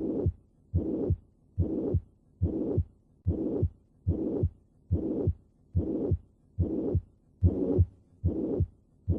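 Heart sounds of mitral regurgitation, repeating at about 70 beats a minute. Each beat starts with a sharp first heart sound and runs straight into a pansystolic murmur that lasts up to the second heart sound, with a quiet pause between beats.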